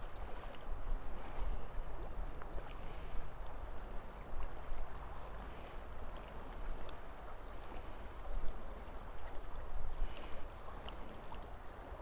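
Shallow river water rushing and rippling close to the microphone, with a steady low rumble of wind on the microphone.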